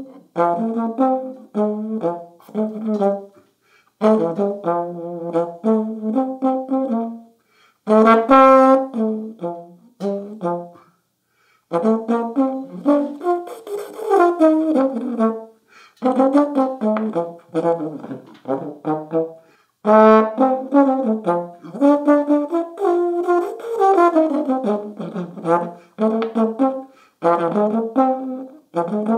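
Slide trombone played solo and unaccompanied: a jazz melody in short phrases with brief pauses for breath between them, some notes sliding in pitch.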